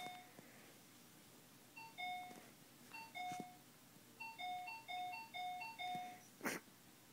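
Two-tone electronic ding-dong chime rung over and over, high note then low: two chimes a second apart, then four in quick succession, as if the button is pressed impatiently. A single sharp click follows near the end.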